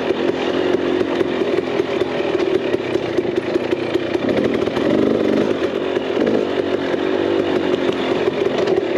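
KTM 300 XC's single-cylinder two-stroke engine running at a steady, moderate pace on a trail, with a short rise in revs about five seconds in.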